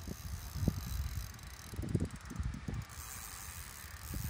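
Fishing reel being cranked while a hooked carp is played on a bent rod. Its mechanism makes a rapid clicking whirr, and there are irregular low knocks of handling.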